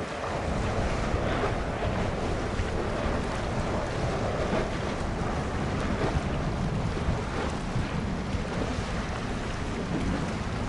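Steady wind noise on the microphone, a rushing haze with a low rumble beneath it.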